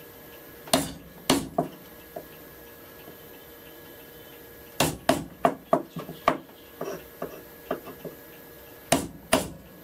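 Sharp knocks of a small wood chisel being struck to chop a recess for a square nut in a wooden plane body. A few blows come in the first two seconds, then a pause, then a quick run of strikes, and two more near the end.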